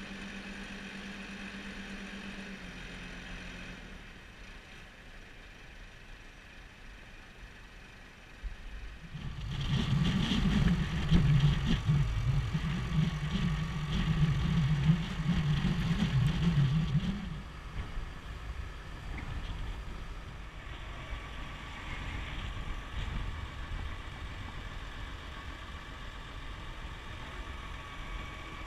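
Tractor and Kimadan slurry tanker with trailing-hose boom at work, the engine running steadily. It turns louder and rougher for several seconds about a third of the way in, then settles back, with a faint high whine over the running.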